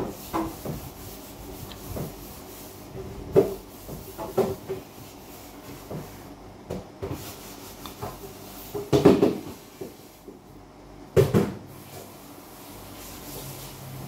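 A fork knocking and scraping on a plate during a meal, with scattered short clatters. The loudest come about three and a half, nine and eleven seconds in.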